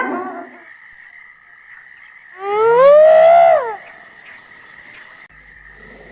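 An animal's drawn-out call, about a second and a half long, rising and then falling in pitch, after the tail end of an earlier call at the start.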